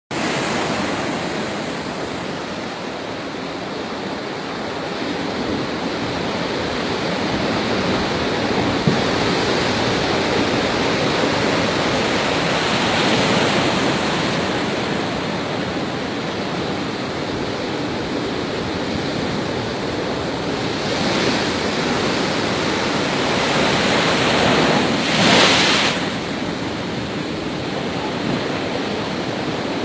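Sea surf rushing steadily, swelling louder about a third of the way through and again near 25 seconds, with one sharp tick about nine seconds in.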